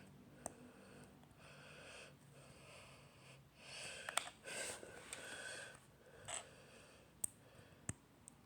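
Quiet handling noises of small craft parts: soft rustling, loudest about four to five seconds in, and a few sharp light clicks.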